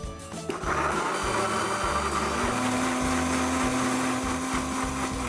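Electric countertop blender running, pureeing chunks of kiwi, papaya and basil leaves in guava juice. It starts about a second in and runs steadily, with a steady motor hum coming in about halfway, then cuts off.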